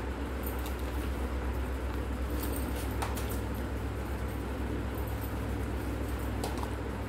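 A steady low hum runs underneath, with a few light clicks and ticks of small metal parts being handled on a workbench, most of them around the middle.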